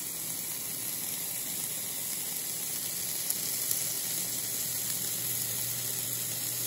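A steak sizzling steadily as it sears on the hot grate of a Philips Smoke-less infrared indoor grill, over a faint steady low hum.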